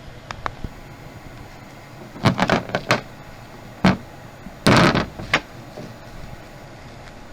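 Irregular knocks and clatter of hard parts being handled during a suitcase wheel repair: a few light clicks, then a quick cluster of hard knocks, a single knock, and a short rattling clatter.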